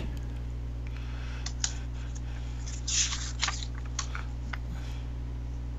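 Paper logbook pages being handled and turned: a few light clicks and a short rustle of paper about three seconds in, over a steady low electrical hum.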